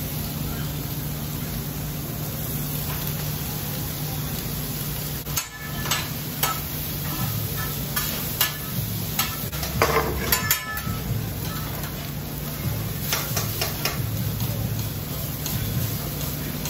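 Meat and vegetables sizzling on a flat-top hibachi griddle, with a metal spatula and fork clicking and scraping on the steel surface, mostly from about six seconds in. A steady low hum runs underneath.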